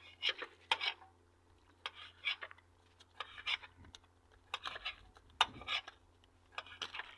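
Irregular clattering and clinking in short bursts as a freshly caught fish and its tackle are handled aboard a fishing boat, over a faint steady low hum.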